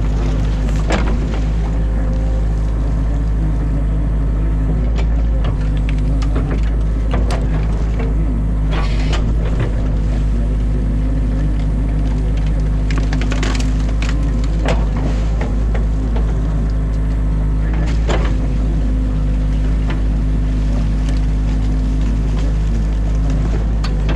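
Excavator diesel engine running steadily, heard from inside the cab, with branches and sticks cracking and snapping at intervals as the bucket pulls a beaver dam apart.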